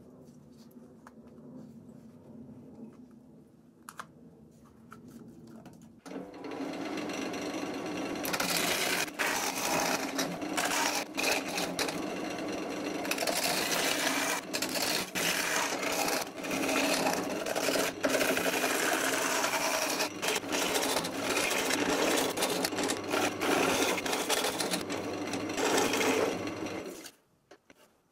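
Wood lathe started about six seconds in, then a gouge cutting into a spinning lime (linden) wood crotch bowl, a loud, steady cutting noise with short breaks as the tool leaves the wood, over the hum of the lathe motor at low speed. The cutting and the motor stop shortly before the end.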